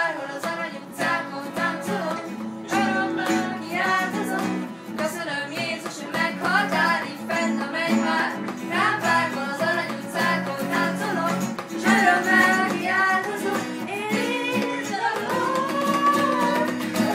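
Two women singing a song together to a strummed acoustic guitar accompaniment.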